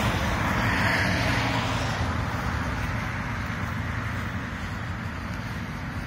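Road traffic: the noise of a passing car fades away gradually, leaving a low steady rumble of traffic.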